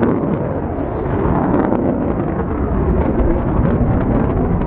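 Saab 37 Viggen fighter's Volvo RM8 afterburning turbofan, a loud, steady, deep jet noise as the aircraft flies overhead.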